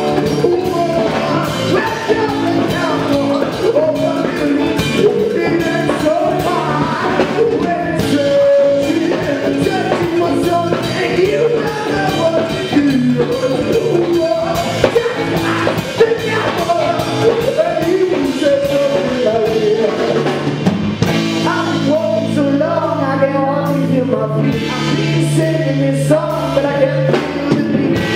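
Indie rock band playing live: electric guitar and drum kit, with a male lead singer singing into the microphone.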